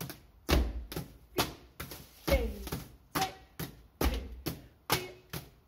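Drumsticks tapping a steady beat, a little over two strokes a second, on a homemade drum kit of foil-covered school chairs and a sheet of paper. A foot stamping on cardboard as the bass drum adds a deep thump on every fourth stroke.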